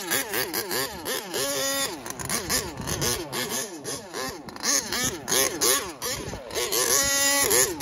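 Small two-stroke petrol engine of an HPI Savage XL Octane RC monster truck revving up and down in quick throttle blips, its pitch rising and falling several times a second.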